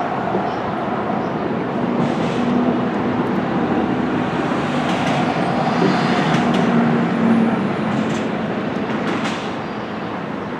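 A passenger train running: a steady rumble and rattle with a few faint held tones and occasional clicks.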